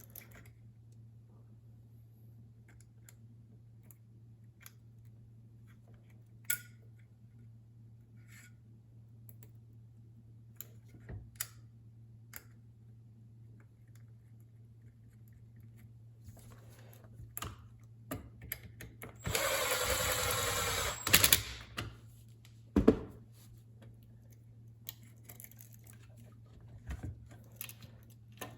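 Light clicks and knocks of tools and small parts being handled on a workbench, then a power drill runs for about two seconds about twenty seconds in, followed by a couple of sharp knocks.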